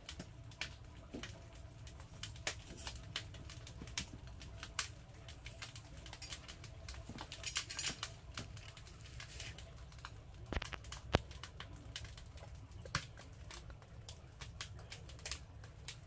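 Firewood crackling inside a wood-burning stove: irregular sharp snaps and pops over a low steady rumble.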